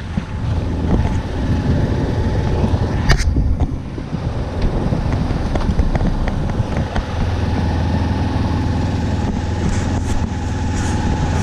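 A small sailboat's inboard diesel engine running steadily as a low hum, with wind rushing over the microphone. There is a single sharp knock about three seconds in.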